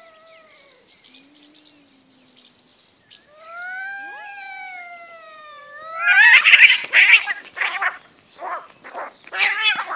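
Two tabby cats in a standoff: long wavering yowls and a low growl, with one yowl rising in pitch, breaking into loud screeching as they fight about six seconds in, with more shrieks near the end.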